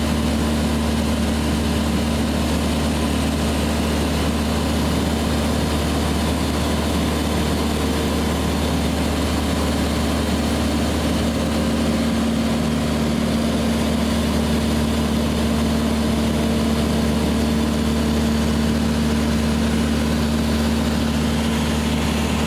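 Cessna's single piston engine and propeller running steadily in flight, heard inside the cabin as a constant low drone over a steady rush of air and engine noise.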